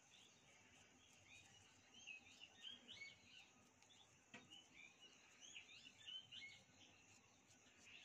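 Faint chirping of small birds in the background, many short rising and falling calls from about two seconds in, with a single soft click about four seconds in.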